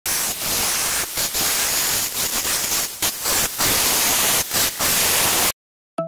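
Angle grinder cutting dry into a granite door frame: a loud, dense grinding hiss that dips briefly several times and cuts off abruptly about five and a half seconds in.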